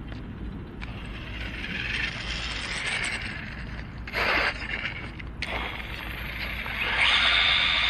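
3D-printed Tarmo4 RC car with a brushless motor driving over rough concrete and grit, its drivetrain and tyres making a mechanical, gritty noise. The sound swells and fades, with a short loud burst about halfway and the loudest stretch near the end.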